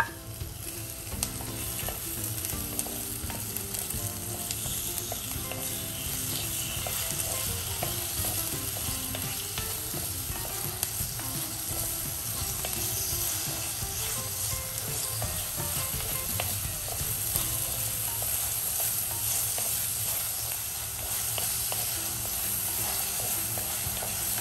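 Tomato, shallots, green chilli, ginger and garlic sizzling steadily in hot coconut oil in a pan while being stirred, with the spatula clicking and scraping against the pan now and then.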